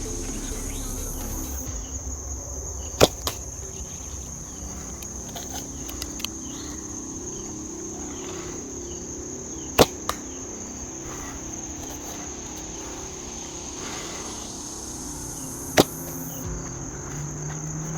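Three arrow shots from a 3D-printed Pocketshot slingbow, each a sharp snap, spaced about six or seven seconds apart. The first two are each followed a fraction of a second later by a fainter knock. Crickets trill steadily and high-pitched underneath.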